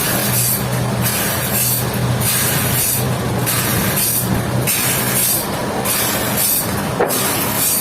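Sawmill saw running through a large hardwood log: a steady mechanical hum with a high hiss that swells and fades about once a second.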